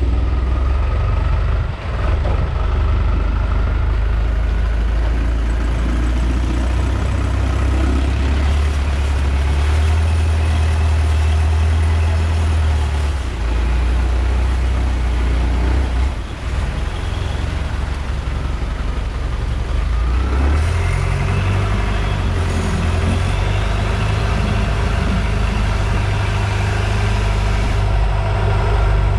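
Tourist boat's engine running steadily under way, its note rising about twenty seconds in as it speeds up.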